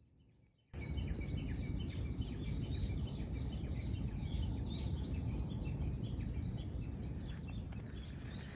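Wild birds singing and chirping at dawn, many short overlapping calls in a dense chorus, starting abruptly about a second in over a steady low rumble of background noise.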